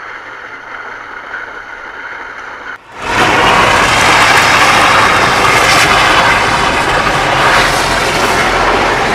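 Steady road and wind noise of a Jeep moving slowly while towing a toy four-wheeler on a strap. The noise is moderate at first, then much louder and steady from a sudden cut about three seconds in.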